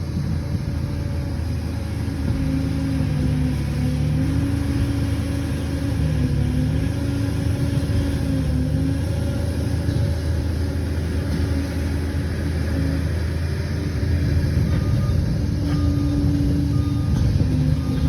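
Liebherr 746 crawler bulldozer's diesel engine running steadily, its pitch wavering slightly.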